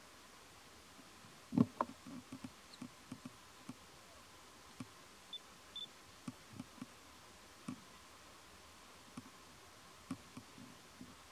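Faint scattered clicks and soft knocks, a dozen or so spread irregularly, the loudest about a second and a half in, over a quiet steady background.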